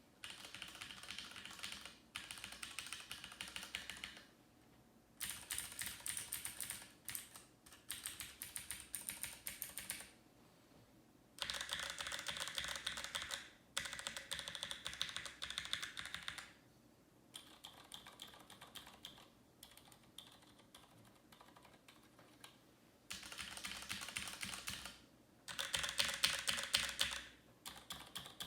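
Fast typing on a computer keyboard: dense runs of key clicks in bursts of one to three seconds, broken by short pauses.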